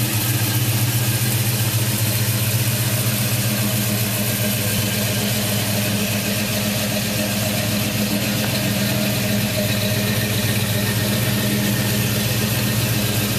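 A 1972 Chevrolet pickup truck's engine idling steadily at a low, even pitch.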